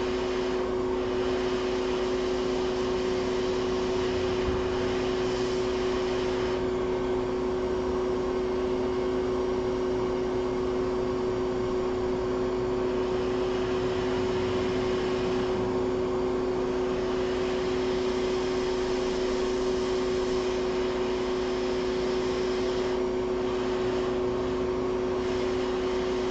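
Steady whirring hum of an electric fan or blower, with a constant-pitch drone over an even airy hiss.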